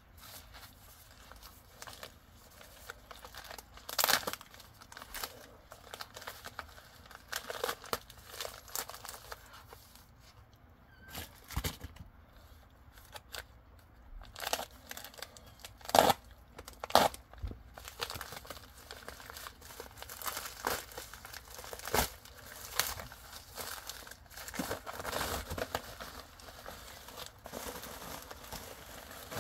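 Padded plastic mailer envelope being torn open and handled: irregular crinkling and tearing, with a few louder sharp crackles.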